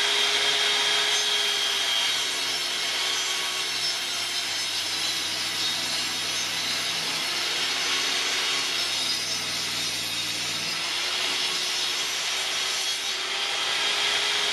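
Table saw with a fine-toothed (about 60-tooth) blade running and cutting through a melamine particleboard sheet. The motor's pitch sags a little while the blade is in the board, from about two seconds in, and comes back up near the end as it runs free.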